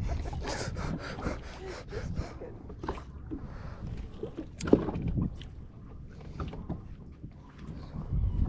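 Steady low rumble of wind and water noise aboard a fishing boat. A quick run of clicks and knocks comes in the first few seconds, and a short voice is heard around the middle.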